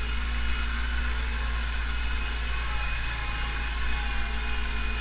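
Pronar 82SA tractor's diesel engine running steadily under load while pulling a field cultivator, heard from inside the cab as a constant low drone.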